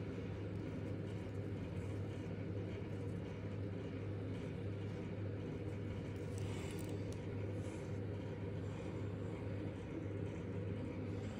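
Steady low background hum, with a brief faint rustle about six and a half seconds in.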